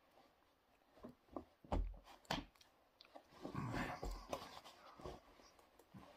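Soft rustles and a few short knocks and thumps of hands moving against a jacket during sign language, loudest as two thumps about two seconds in, with a brief rustle a little after the middle.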